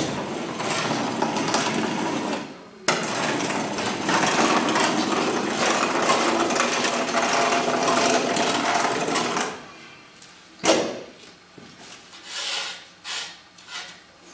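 A power tool runs steadily for about nine seconds, with a brief break about three seconds in, then stops; scattered knocks and clatter of blocks being handled follow.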